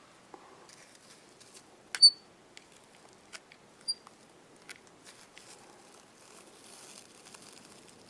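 Small handling sounds at a fly-tying vise while deer hair is spun on with thread: scattered light clicks and soft rustling, with a sharp metallic tick that rings briefly about two seconds in and a smaller one near four seconds.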